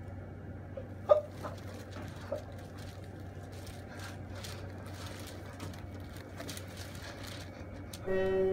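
Quiet room tone with a low steady hum and a few soft knocks about a second in. Near the end a steady held tone with a clear pitch starts.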